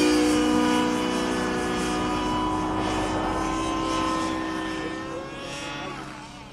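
Align T-Rex 700 radio-controlled helicopter flying overhead: a steady whine from its motor and spinning rotors, fading near the end as it draws away.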